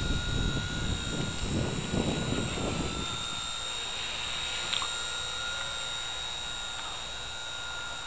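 Blade mCP X micro RC helicopter's electric motors and rotors giving a steady high-pitched whine. A gusty wind rumble on the microphone stops suddenly about three seconds in, and there is a small click near the middle.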